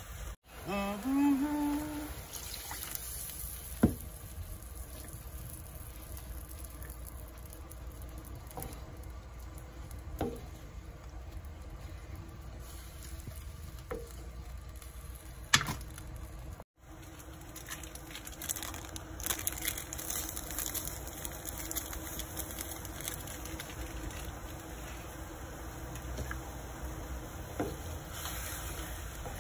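Adobong pusit (squid in soy-vinegar sauce) simmering in a pot with a steady bubbling and sizzling, while a ladle stirs through it. Two sharp knocks ring out, about four seconds in and again near the middle.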